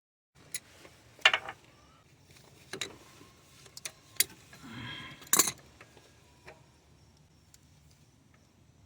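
Metal tools clinking and knocking against metal in several sharp, separate clinks, with a brief scrape about five seconds in.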